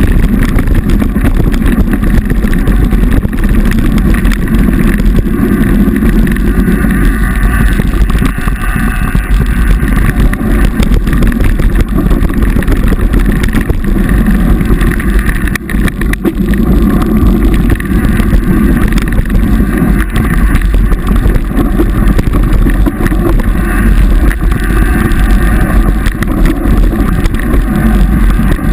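Wind rushing over an action camera's microphone, mixed with the continuous rattling and knocking of a mountain bike riding fast down a dirt singletrack.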